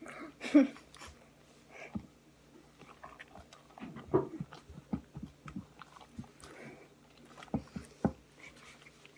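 Homemade glue slime being squeezed and kneaded by hand, giving irregular sticky squelches, smacks and small pops.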